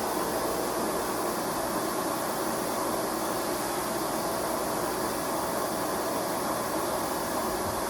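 Kenmore 400 Series canister vacuum running steadily, its motor and the rush of suction air making an even, unbroken noise.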